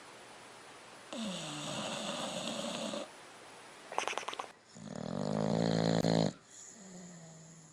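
A sleeping dog snoring: a long snore about a second in, a short rapid flutter about four seconds in, then the loudest snore, and a fainter one trailing off near the end.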